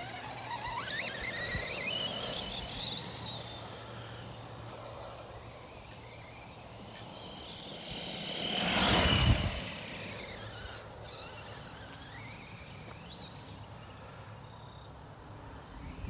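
Brushless electric motor and drivetrain of an Arrma Big Rock BLX 1/10 RC monster truck whining, rising in pitch as it accelerates near the start and again later. About halfway through, a louder rushing swell builds and falls away.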